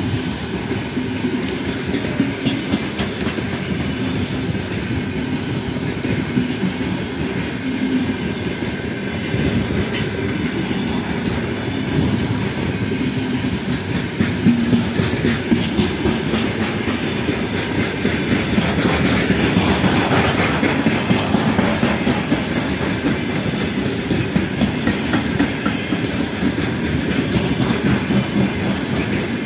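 Covered hopper wagons of a slow freight train rolling past, their wheels clacking over the rail joints with a steady rumble.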